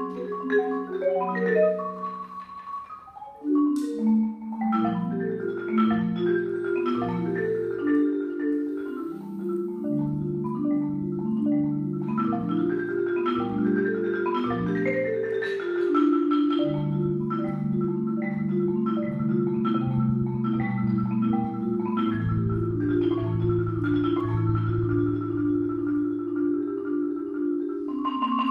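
Solo concert marimba played with mallets: fast patterns of struck notes across the range, dying down briefly around three seconds in, then a sharp click and a loud re-entry. Through the second half, low rolled notes hold under steady repeated upper notes.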